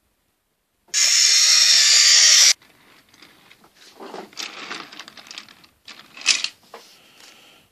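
A steam locomotive letting off steam: a loud, steady hiss that starts about a second in and lasts about a second and a half. Softer scraping and a few knocks follow.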